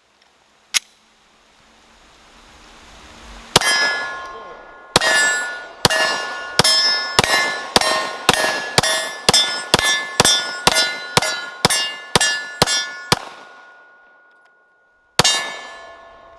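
Glock P80 9mm pistol fired in a steady string, about two shots a second, each shot answered by the clang of a steel target ringing on. One shot comes first, then a run of about sixteen, then one last shot.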